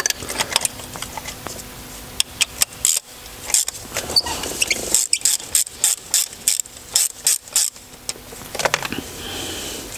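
Long spark plug socket and ratchet being worked in a spark plug well: scattered metal clicks and knocks, then a steady run of clicks, about four a second, about halfway through.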